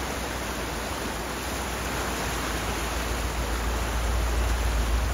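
Fast-flowing glacial meltwater river rushing: a steady, even roar with a deep rumble underneath.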